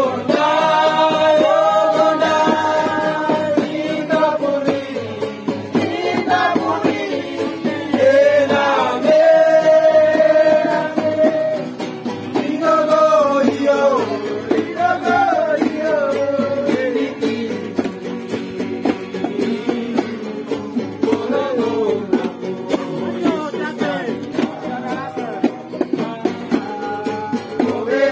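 Voices singing along to two acoustic guitars played by hand, an informal outdoor song.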